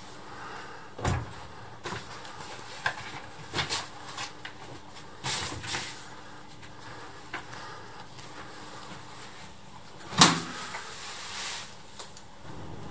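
A folding camping chair being handled and sat in: a scatter of knocks and short clattering rattles, the loudest knock about ten seconds in.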